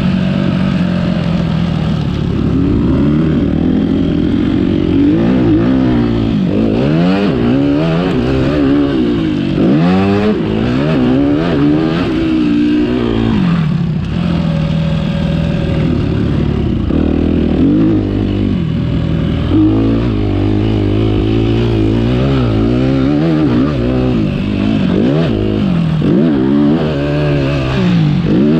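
Motocross dirt bike engine heard close up from on board, revving hard and easing off again and again as the rider works the throttle and shifts, its pitch climbing and dropping every second or two.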